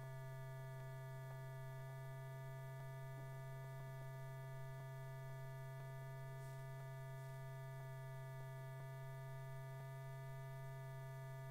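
Steady low electrical hum with several fainter steady higher tones above it, and a few faint scattered ticks.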